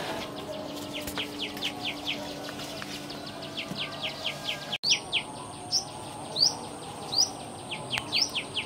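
Small birds chirping in quick series of short, high notes, about three or four a second, with rising sweeps joining in after a brief break about halfway. A faint low steady hum sits under the first half.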